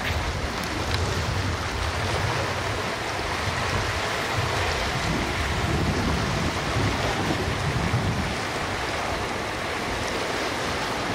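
Pardo 50 motor yacht running past at speed: steady rushing and churning of water along its hull and in its wake, over a low rumble that swells and eases.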